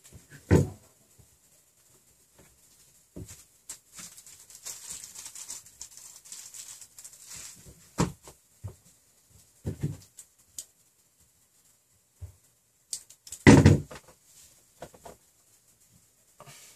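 Workbench handling noises: scattered knocks and clicks as tools, wire and a plastic parts box are picked up and set down, with a stretch of light rustling in the middle and one louder knock near the end.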